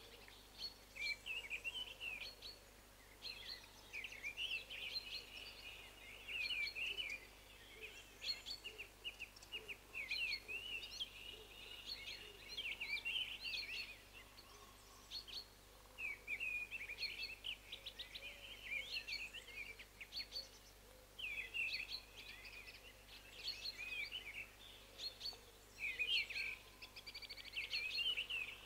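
Songbirds singing in short, quick chirping phrases, on and off with brief pauses, faint over a low steady background hum.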